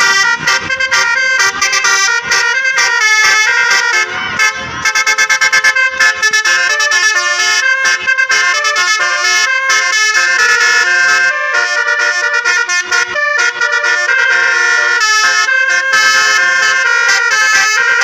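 Indonesian tour-bus 'basuri' telolet horns playing fast multi-note melodies. The tunes step quickly from note to note and hardly stop, with a brief lull about four seconds in, as buses answer one another in a horn battle.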